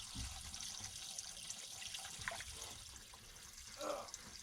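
Artesian well water flowing and splashing steadily, with a few faint small clicks.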